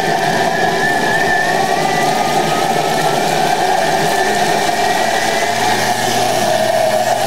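High-powered countertop blender running at high speed, blending soup ingredients: a loud, steady motor sound with thin whining tones that drift slowly upward in pitch.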